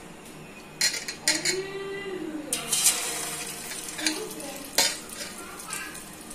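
Batter-coated needlefish pieces going into hot oil in a steel kadai for deep-frying: the oil bubbles and sizzles throughout, with several sudden loud bursts of sizzle as pieces go in, the biggest about two and a half seconds in.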